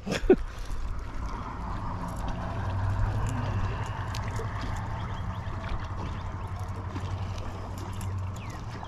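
A sharp knock just after the start, then a boat motor running with a steady low hum that fades out near the end.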